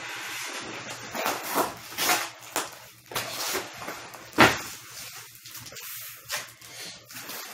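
Large cardboard flat-pack box and sheets being handled: repeated scraping and rustling of cardboard, with one sharp knock about four and a half seconds in.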